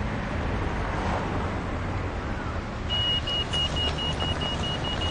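City street traffic with a low, steady rumble; about three seconds in, a pedestrian crossing signal starts beeping, a high pip repeating two to three times a second.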